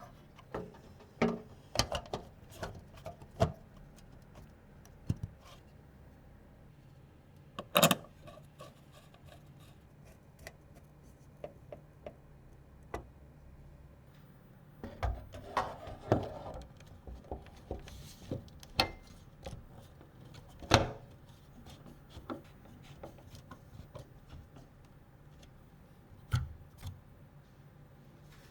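Computer parts being handled and fitted during a PC assembly: irregular clicks, knocks and light rubbing of plastic and metal pieces, with a stretch of scraping about halfway through.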